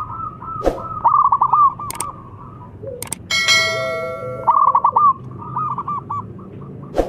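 Zebra dove (perkutut) singing: runs of quick, rolling coo notes repeated several times. A ringing bell-like ding with a few short clicks comes in about three seconds in, matching a subscribe-button animation.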